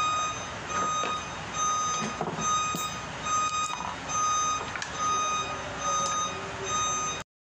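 A vehicle's reversing alarm beeping steadily, one high tone repeated about once a second. The sound cuts off suddenly near the end.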